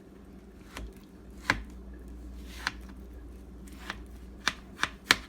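About seven sharp, irregularly spaced clicks and knocks of kitchen utensils while boiled sweet potatoes are handled and cut, the loudest near the end, over a low steady hum.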